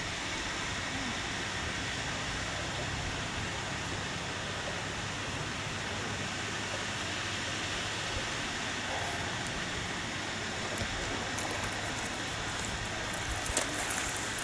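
Steady rushing outdoor noise, with a few light clicks near the end.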